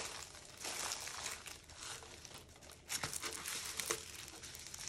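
Plastic packaging of a diamond painting kit crinkling and rustling as it is handled and unwrapped, with a couple of light clicks about three and four seconds in.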